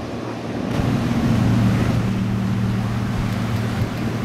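Pilot launch passing at speed, its engine a steady low drone that swells about a second in, over the wash of its wake breaking on the river bank.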